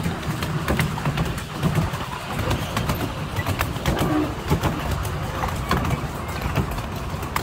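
Open passenger car of a 7¼-inch gauge miniature railway running along the track: a steady low rumble from the wheels with frequent sharp clicks and clatters.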